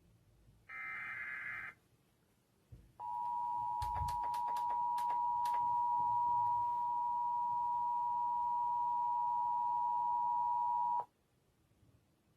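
Emergency Alert System SAME header: a short, harsh data screech that ends about a second and a half in. After a pause comes the EAS two-tone attention signal, 853 and 960 Hz sounded together, held steady for about eight seconds and then cut off. A handful of sharp clicks land over the tones near their start. Together these open a required monthly test of the Emergency Alert System.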